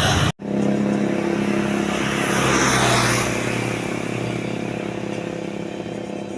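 A motor vehicle passing by: a steady engine drone with road noise that swells to its loudest about two and a half to three seconds in, then slowly fades. The sound cuts out for a split second near the start.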